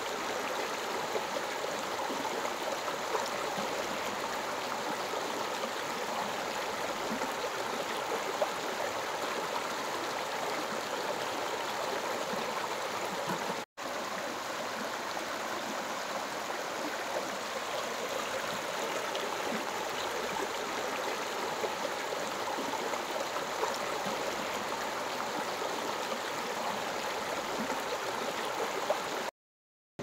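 River water pouring and rushing over rock ledges and between boulders in a low waterfall: a steady, even rush. It breaks off for an instant about halfway through and again shortly before the end.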